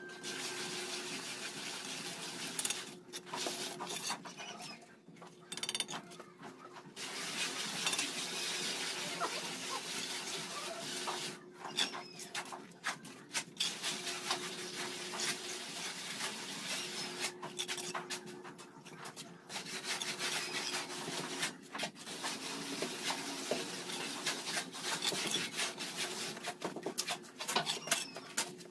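Mason's steel trowel scraping and clinking against wet cement mortar and concrete hollow blocks as mortar is scooped, spread and blocks are set, in irregular scrapes and taps.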